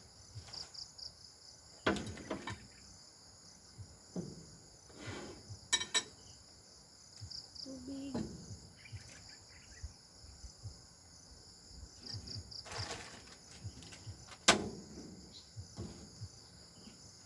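A steady chorus of crickets and other insects, over scattered light knocks, clinks and plastic-bag rustles as a mug, jar and packets are handled and set down on a table. A sharp knock near the end is the loudest sound.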